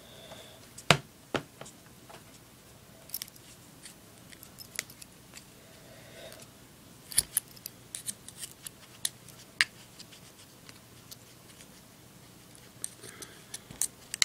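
Irregular sharp metallic clicks and taps from a Zippo lighter insert being handled while the last rayon balls are pushed in.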